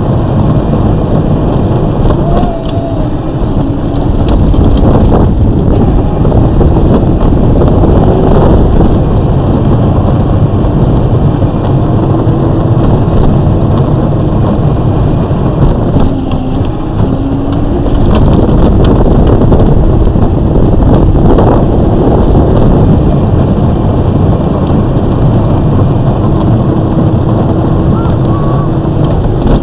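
Battery-powered Power Wheels ride-on toy car driving along a paved street, heard from a camera mounted on its body: a steady loud rumble from the wheels and drive, with a faint hum that shifts pitch a few times.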